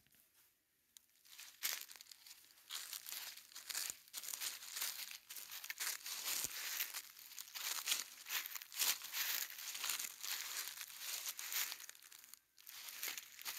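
Dry fallen leaves crunching and crackling in a quick, irregular run as something moves through the leaf litter. It starts about a second and a half in and pauses briefly near the end.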